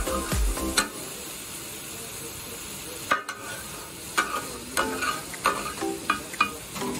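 Meat and masala sizzling in oil on a large flat metal griddle, with a metal spatula scraping and knocking against the griddle several times. Background music with a beat fades out within the first second.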